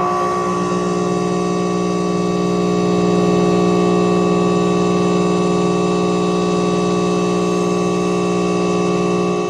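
Electrical static buzz: a steady, loud hum with many overtones over a hiss, heavily reverberated as if played through a stage sound system.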